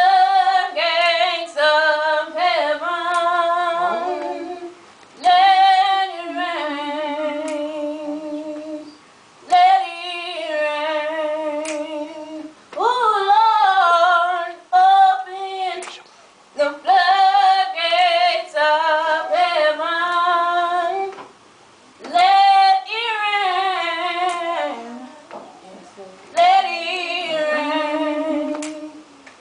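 Female voice singing a gospel song unaccompanied, in long wavering phrases broken by short pauses for breath.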